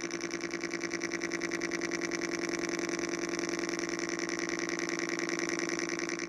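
Pulsing electronic buzz from a homemade transistor oscillator circuit played through a loudspeaker. Its pulse rate quickens into a near-continuous buzz, then drops back to slower pulses right at the end. The rate changes with a hand's nearness to the circuit's antenna.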